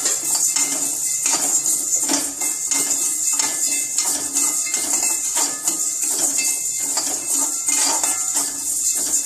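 Dry toor dal being stirred and tossed with a metal spatula in a metal kadai during dry roasting without oil, the lentils rattling and scraping against the pan in quick, continuous strokes.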